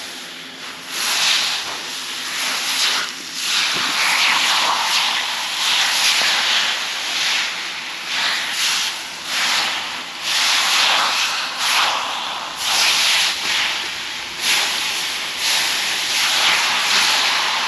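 A freshly torch-cut piece of 4-inch steel plate, still very hot, hisses and sizzles as it is quenched in snow. The sizzle swells and fades in repeated waves as fresh snow is pressed against the hot metal.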